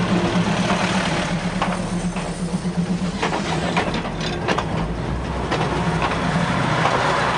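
State Railway of Thailand diesel railcar creeping past at close range, its underfloor diesel engine running with a steady drone and scattered clicks and knocks from the wheels and running gear.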